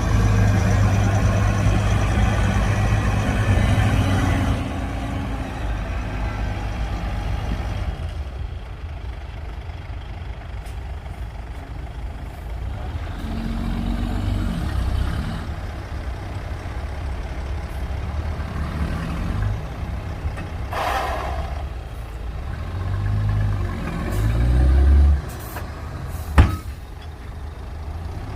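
Heavy diesel construction machinery working, loudest for the first few seconds and then running lower, with a brief hiss of air about two-thirds through and a sharp knock near the end.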